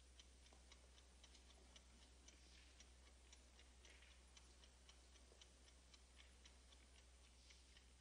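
Near silence: faint room tone with quiet, fairly even ticking, a few ticks a second.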